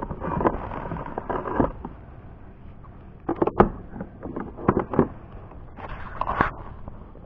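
Hooked channel catfish splashing at the surface while being fought from a kayak: a longer splash at the start, then several short, sharp splashes and knocks.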